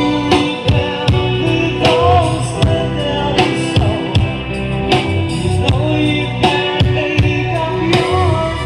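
Music with singing, a steady drum beat and heavy bass, played loud through a speaker system under test.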